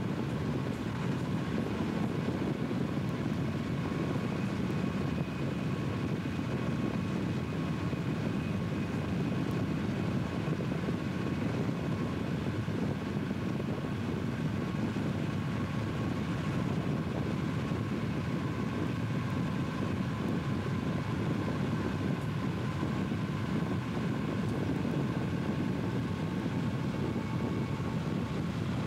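Steady drone of road and wind noise from a vehicle pacing a moving train, mixed with the Southern Pacific diesel locomotive running alongside. A few faint, steady high whining tones sit above the low noise.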